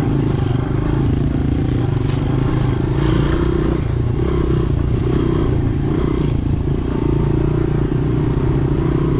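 Dirt bike engine running as the bike rides along a bumpy dirt trail, its pitch rising and falling a little with the throttle, with a few knocks and rattles from the bike over the bumps.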